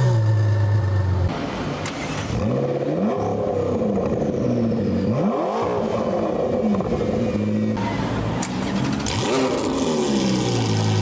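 A car engine just after start-up, its flare dropping to an idle, then blipped several times so the revs rise and fall before settling back.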